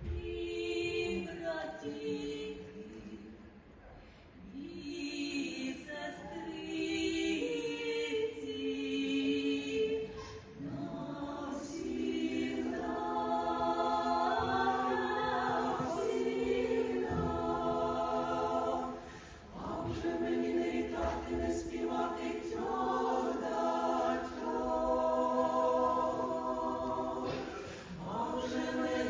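Folk vocal ensemble singing an old Ukrainian kant in several-part choral harmony, in long held phrases with short breaks between them about four seconds in, near twenty seconds in and near the end.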